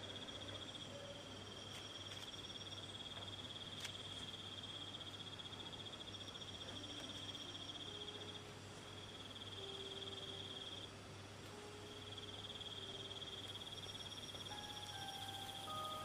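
Night-forest ambience of crickets chirping in a steady high trill that breaks off briefly a couple of times, with a fainter pulsing chirp above it. A few faint low notes of soft background music sound under it.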